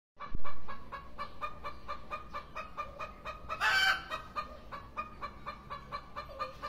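Chicken clucking in a fast, even series of short clucks, about five a second, with one louder, harsher call near the middle.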